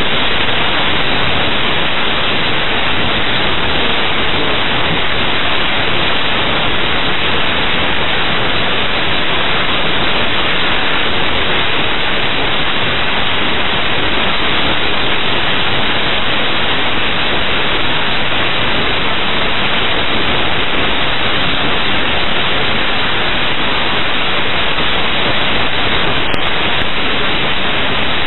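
Steady, loud radio static hiss from an air traffic control frequency recording, cut off above the narrow radio band.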